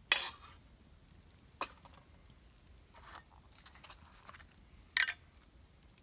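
Metal mess kit pan and utensil clattering and scraping: a sharp clank at the start, a short click, some light scraping and clicking, then another clank near the end.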